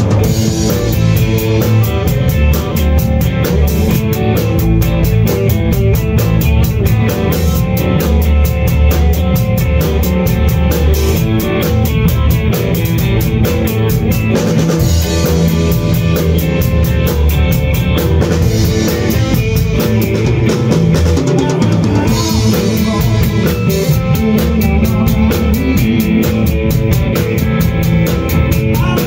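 A rock band playing live: drum kit keeping a steady beat with cymbals, electric guitar and electric bass.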